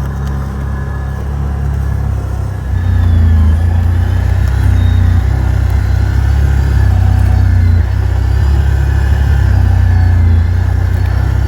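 Can-Am 6x6 off-road vehicle engine running under way, a steady low rumble that grows louder about three seconds in as it speeds up.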